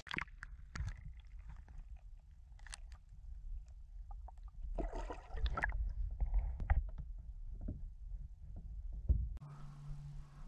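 Muffled water sloshing and gurgling around a camera dipped in the lake, with scattered knocks and a short splashy burst about five seconds in. Near the end it cuts to a faint steady low hum.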